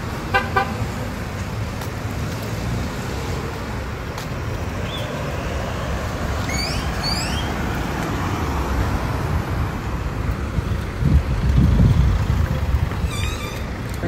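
Road traffic: a steady low rumble of vehicles, with a short horn toot just after the start and a louder low rumble of a vehicle passing about eleven seconds in.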